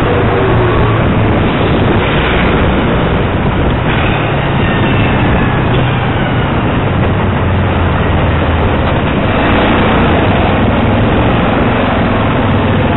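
Loud, steady road noise of busy city traffic heard from a moving bicycle, with the low drone of engines from nearby scooters, cars and buses. A faint whine glides slowly down a few seconds in.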